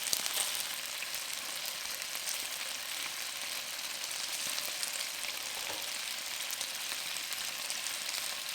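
Chicken wings frying in oil in a non-stick pan over medium heat, sizzling steadily as they brown, with the occasional faint crackle of spitting oil.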